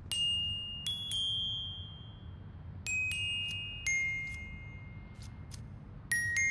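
High, bell-like metallic chime notes struck one at a time, each ringing and dying away, the tune drifting lower toward the end.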